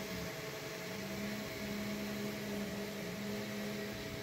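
3D printer running a print: a low motor whine that keeps stopping, starting and changing pitch as the print head moves, over a steady fan hum and hiss.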